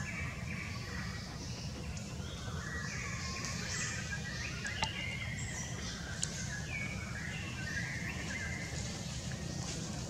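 Outdoor ambience of many small birds chirping and calling over a steady low rumble, with two sharp clicks about five and six seconds in.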